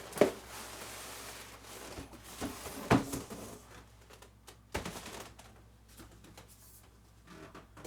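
Cardboard packaging box being opened by hand: scraping and rustling of the cardboard with a few sharp knocks, the loudest about three seconds in.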